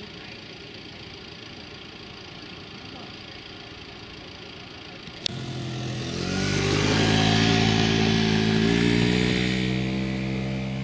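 Faint steady outdoor background, then, after an edit click about five seconds in, a motor vehicle's engine comes up loud with road noise as it passes, easing off slightly near the end.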